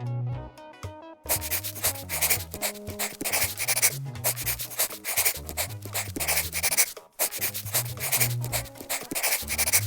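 Rapid scribbling strokes on paper, as of a pen drawing, starting about a second in, over light background music.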